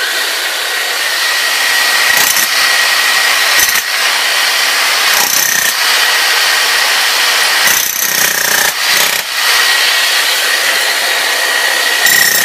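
Bosch electric demolition hammer chiselling into a concrete floor slab, hammering continuously with a steady high tone in the noise. It eases off briefly a couple of times past the middle.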